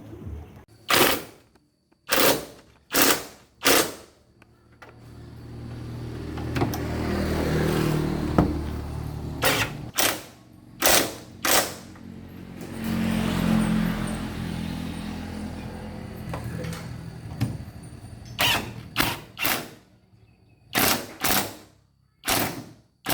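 Power-tool noise from car repair work: short sharp bursts in groups of two to four, and twice a longer noisy run of about four seconds with a low steady hum underneath.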